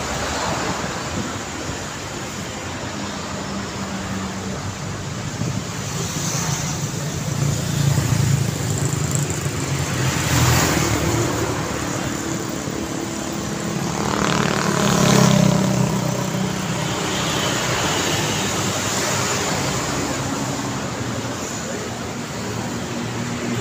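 Road traffic on a city street: steady engine and tyre noise from passing vehicles, swelling as individual cars go by about 8, 10 and 15 seconds in, the pass near 15 seconds the loudest, with a low engine hum underneath.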